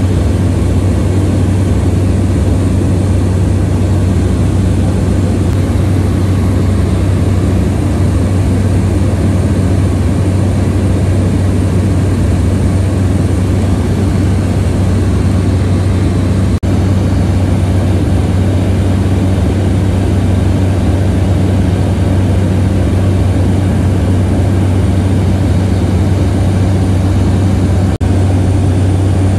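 Cabin noise of a Cessna 208 Grand Caravan in descent: its single Pratt & Whitney PT6A turboprop and propeller give a loud, steady low drone under a constant rush of engine and air noise. It dips very briefly twice, about halfway and near the end.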